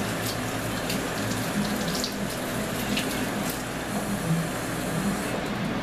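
Kitchen faucet running steadily as a spoon is washed under it with a dish sponge, with a few light clicks.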